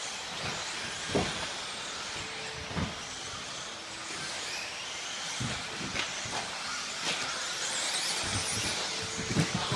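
1/10 scale electric off-road RC buggies racing: the high-pitched whine of their brushless motors rising and falling as they accelerate and brake, over a steady rush of noise, with a few short thuds.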